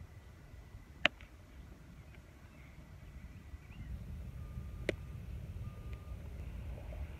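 Open-air field ambience with a low wind rumble on the microphone. It is broken by a sharp crack about a second in and a fainter crack near five seconds. Two short beeps at the same pitch sound around five and six seconds.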